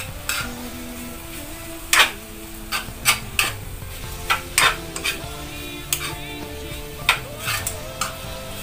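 Metal spatula scraping and clinking against a wok as vegetables are stir-fried, a dozen or so irregular strikes over a steady sizzle.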